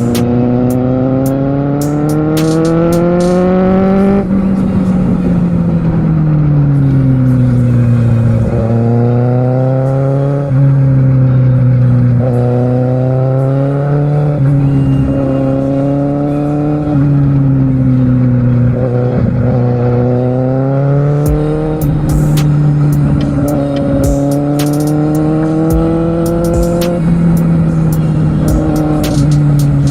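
Kawasaki Z750R's inline-four engine heard from on board while riding: it pulls up in pitch for about four seconds, then falls back, followed by a run of shorter rises and drops in revs through gear changes and throttle.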